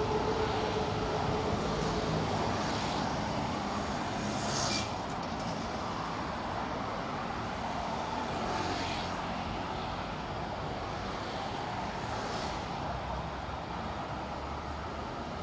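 City road traffic: cars, taxis and motorcycles driving past steadily, with a few vehicles passing close, the loudest about five seconds in.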